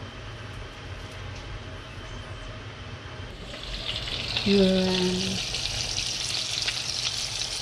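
Hamburger patties sizzling in oil in a frying pan. The sizzle comes in loudly a little over three seconds in; before that there is only a low hum. A brief low hum-like tone sounds about halfway through.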